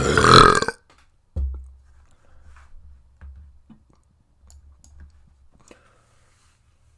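A loud, deep burp from a person, lasting under a second, followed a moment later by a dull low thump and faint clicking mouth sounds.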